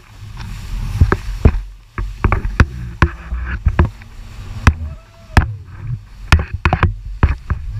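Yamaha WaveRunner jet ski running fast over choppy water: a low, uneven rumble broken by many sharp, irregular slaps of the hull and spray hitting the water.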